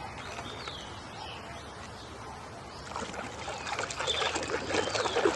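Water sloshing and splashing as a toy vehicle is washed, growing louder and busier about three seconds in.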